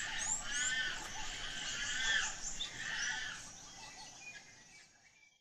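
Wild birds calling: many short, overlapping chirps and whistles over faint outdoor ambience, fading away over the last couple of seconds.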